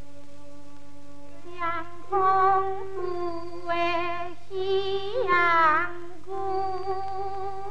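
Teochew opera singing with instrumental accompaniment: after a held note, a high voice sings drawn-out phrases with a heavy vibrato and slides down in pitch about two-thirds of the way through.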